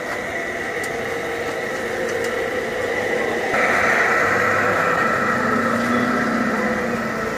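Large-scale garden model diesel locomotive running past with its freight cars: a steady mechanical whine and hum that turns louder about three and a half seconds in as the locomotive comes close.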